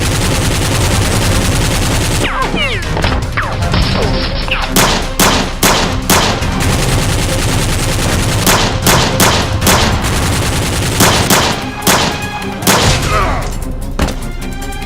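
Dubbed-in gunfire sound effects: volleys of rapid shots in bursts over background music, with the music coming to the fore near the end.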